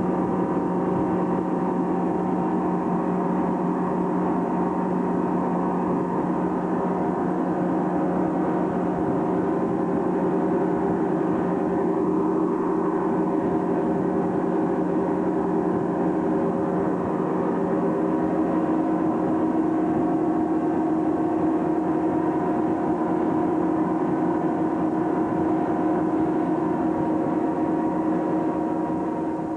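Twin outboard motors running steadily at cruising speed, a constant engine drone over the rush of water and wind, fading out near the end.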